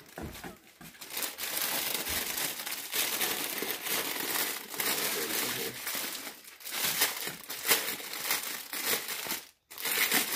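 Clear plastic bag wrapped around a folded beach towel crinkling and rustling as it is handled and pulled at, a continuous run of irregular crackles with a brief break near the end.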